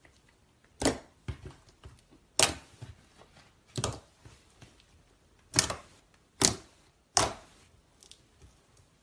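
Slime being pressed and squeezed by hand, giving sharp pops and clicks at uneven intervals: six loud ones with fainter crackles between.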